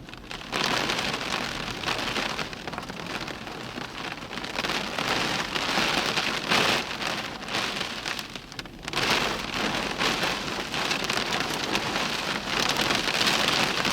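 Heavy rain falling in a thunderstorm, a steady hiss that swells and fades every few seconds.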